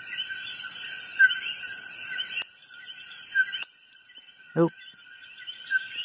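Insects chirping steadily in the background, with two sharp clicks about two and a half and three and a half seconds in, and a very short vocal hum about four and a half seconds in.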